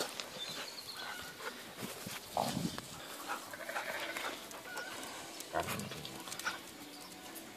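Two Belgian Shepherd Tervuerens at play, making short low play noises a few times, the clearest about two and a half and five and a half seconds in, among light scuffling of paws.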